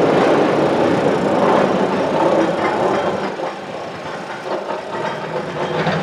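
John Deere excavator running at a demolition site, a loud, steady mechanical rumble that eases somewhat after about three seconds.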